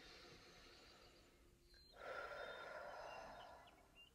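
A woman's slow, audible breath: a soft breath in, then a louder breath out starting about two seconds in.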